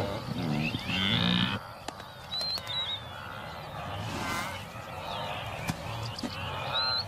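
Wildebeest grunting and calling, loudest in the first second and a half, with birds chirping now and then in the background.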